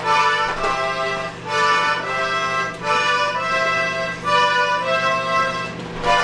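Music with a reedy melody, its notes changing about twice a second, over a steady low hum from the running microwave oven.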